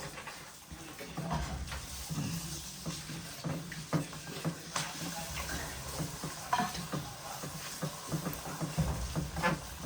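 Cooking in a kitchen: scattered clinks and scrapes of a utensil stirring food in a pot.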